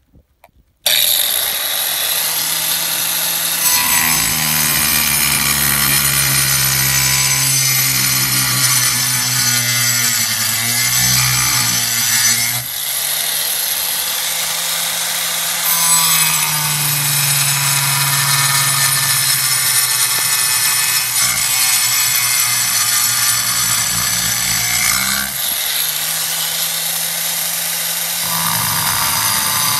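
Angle grinder with a diamond blade cutting fiber-cement (Hardie) board: it starts about a second in and runs loud and steady with a high whine, dipping briefly twice.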